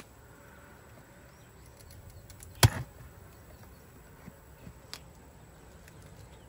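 A metal hive tool knocking once, sharply and loudly, on a wooden beehive about two and a half seconds in, followed by a few faint light taps.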